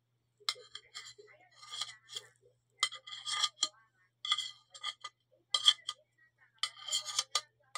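Metal spoon clinking and scraping against a plate while food is scooped up: a run of sharp clinks with a brief ring, some drawn out into short scrapes.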